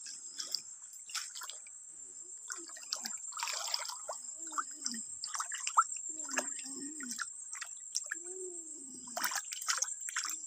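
Shallow stream water trickling, with irregular small splashes and drips as a hand gropes among the stones under the water.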